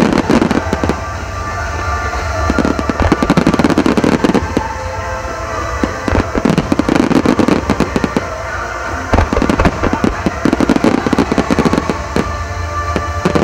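Aerial firework shells bursting in rapid volleys, dense cracks and booms coming in waves about every three seconds, over background music.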